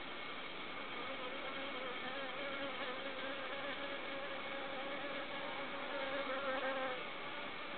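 A flying insect buzzing close by, its drone wavering slightly in pitch. It starts about a second in and stops suddenly near the end, over a steady high-pitched hum.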